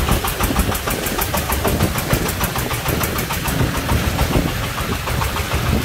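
Công nông three-wheeled farm truck's single-cylinder diesel engine running under load as the stone-laden truck drives slowly, with a rapid, even knocking beat.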